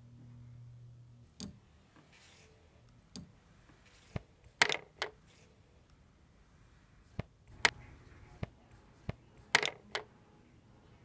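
A low hum that stops about a second in, then about a dozen sharp clicks and knocks at uneven intervals, some in quick clusters of two or three.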